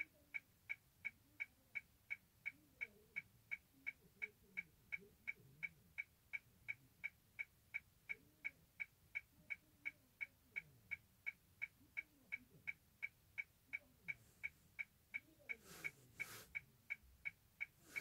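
A car's indicator ticking steadily at about three sharp, even ticks a second, heard inside the stopped car.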